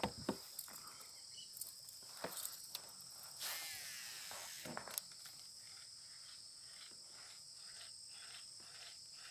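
Insects chirping: a steady high-pitched drone, joined about halfway through by a rhythmic chirp about three times a second. A few faint clicks and knocks come in the first seconds.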